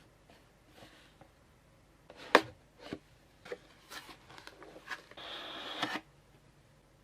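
CPU retail box and packaging being handled: one sharp click, then several lighter clicks and taps, and a brief sliding rub of about a second near the end.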